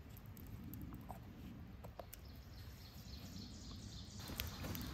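Faint outdoor ambience with a low rumble and a few soft clicks near the end.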